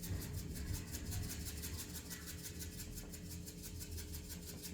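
Black pepper being put onto raw chicken strips: a fast, even rasping rhythm of about ten strokes a second.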